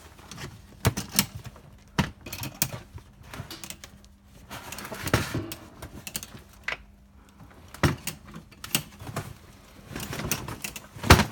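Irregular knocks, clinks and short scrapes of loose metal items being shifted about, with the loudest knock near the end.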